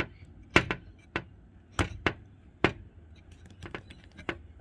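Sharp metallic clicks from a Gottlieb pinball ball count stepper unit, its ratchet wheel and pawl being worked by hand. About six strong clicks come roughly half a second apart, then lighter ticks near the end. Its reset spring has just been set at three turns and snaps the unit back into place.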